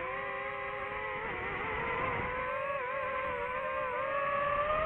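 DJI FPV drone's motors and propellers whining at fairly steady throttle, the pitch wavering and edging up toward the end.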